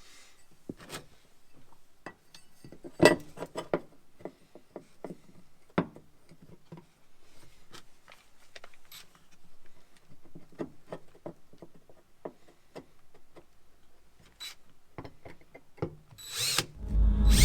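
Scattered light clicks and knocks of hand tools and metal hardware as quarter-inch nuts and bolts are fitted to anchor steel floor plates. Music comes in near the end.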